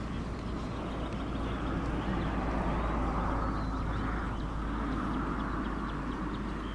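Horse-drawn carriage on the move: a steady noise of wheels and hooves on grass and sand that swells about three seconds in and eases off, with wind rumbling on the microphone.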